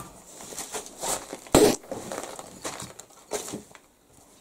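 Small bricklayer's pick striking the old brickwork of a stove, a handful of knocks with one heavy blow about one and a half seconds in, and brick and clay crumbling and falling.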